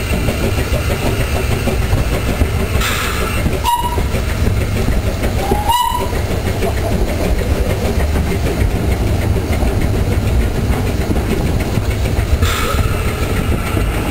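Metre-gauge steam locomotive and train running uphill, heard at close range from right behind the engine: a steady, loud rumble and clatter of running gear and wheels on the rails. Two brief high tones sound about four and about six seconds in; the second rises into its pitch.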